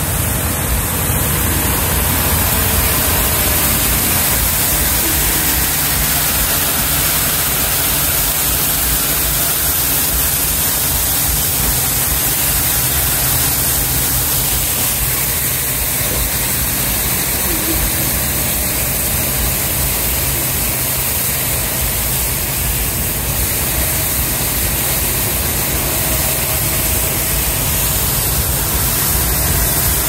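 Heavy road-construction machinery, a cold milling machine, running steadily: a low engine hum under a loud, even rushing noise that does not change.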